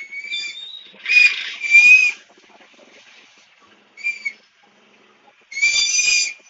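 A whistle blown in a series of shrill, steady blasts: one fading out at the start, two close together about a second in, a short one around four seconds, and a longer one near the end.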